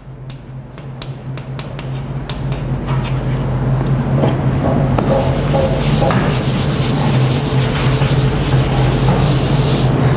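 Chalk writing on a blackboard: a run of quick taps and scratchy strokes in the first few seconds, with scattered strokes later. Under it a steady low hum and hiss builds over the first few seconds and then holds.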